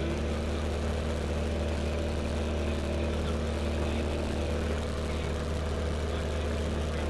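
L-13 Vivat motor glider's piston engine and propeller running steadily, with a deep even drone, heard from inside the closed cockpit canopy.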